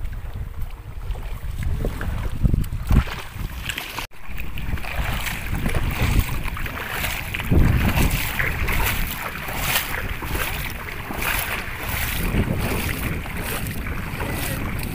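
Wind rumbling on the microphone over moving river water. After a cut about four seconds in, repeated splashing of feet wading through shallow, muddy water.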